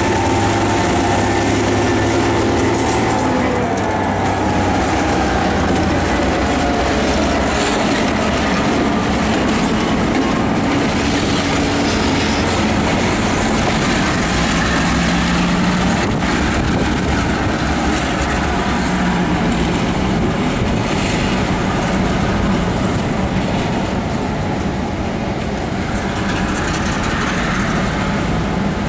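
Freight train rolling past close by behind EMD diesel locomotives, a GP9 and an MP15. The locomotives' engine drone drops in pitch over the first few seconds as they go by, then gives way to steady wheel-on-rail rumble with clickety-clack from the cars.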